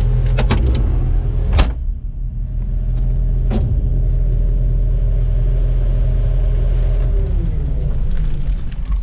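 Kubota excavator's diesel engine running steadily with a whine over a low rumble, broken by a few sharp knocks in the first two seconds, the loudest about one and a half seconds in. Near the end the whine falls in pitch as the engine slows down.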